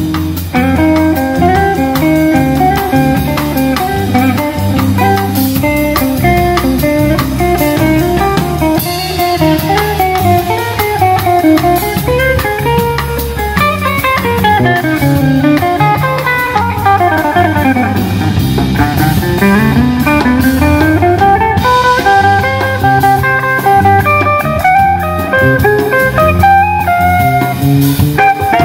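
Background music: a guitar-led instrumental with drums, with a long run of notes sliding down and then back up about halfway through.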